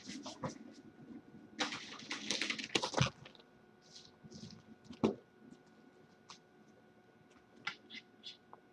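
Kitten clambering about on a fabric toy boat: a burst of scrabbling claws and rustling fabric about two to three seconds in, a single knock about five seconds in, then a few light ticks, over a faint steady tone.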